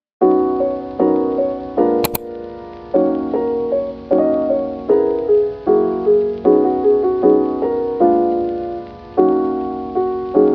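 Background music of piano chords, a new chord about once a second. It starts just after a brief silence.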